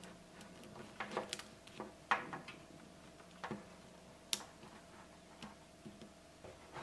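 Faint, irregular small plastic clicks and taps as a toy lightsaber hilt is pushed and turned into the hand of a plastic action figure. The sharpest click comes a little over four seconds in.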